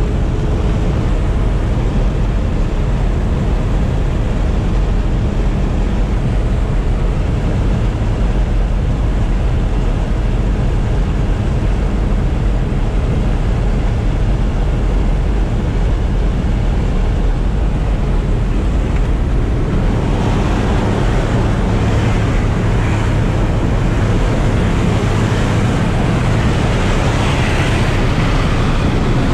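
Steady low drone of a jump plane's engines, mixed with wind noise on the microphone. About twenty seconds in, a louder, hissier rush of wind joins in.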